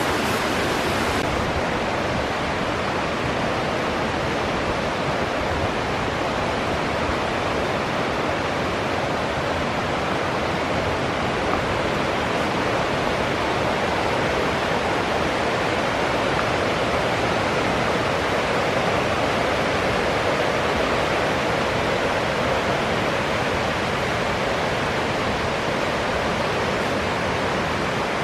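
Rushing water of a mountain stream running high after a typhoon's rain: a loud, steady roar.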